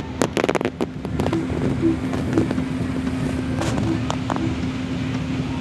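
Ferry engine running with a steady hum, with wind noise on the microphone. A quick run of clicks and knocks comes in the first second or so, and a few more about four seconds in.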